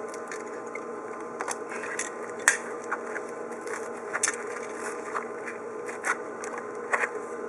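Scattered light taps and clicks from hand tools working the expansion-joint filler strip into the concrete joint, over a steady low hum. The strongest tap is about two and a half seconds in.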